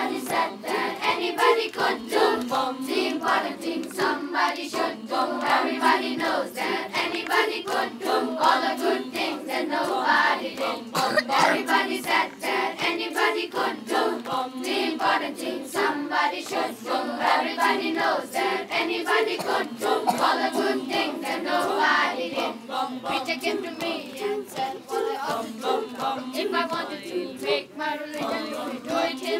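A large children's choir singing a cappella, many voices together without instruments.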